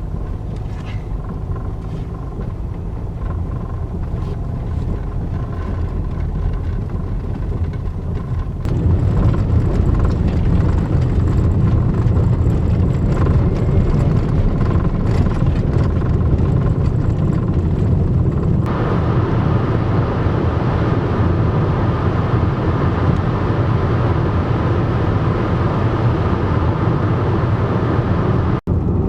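A van driving on the road: a steady low rumble of engine and road noise. It gets louder abruptly about nine seconds in and brighter and hissier about nineteen seconds in, with a brief dropout near the end.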